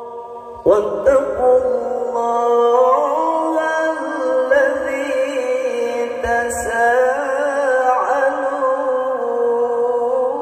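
A male qari chanting Quranic recitation in the melodic tilawah style, holding long notes with ornamented turns. A new phrase starts about a second in after a short breath, and the voice carries a long echo.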